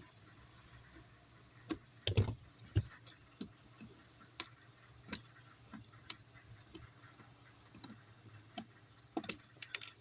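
Flathead screwdriver prying out a Jeep Wrangler JK's shift-cable access cover, making irregular light clicks and taps, with a few quicker clicks near the end, over a faint steady hum.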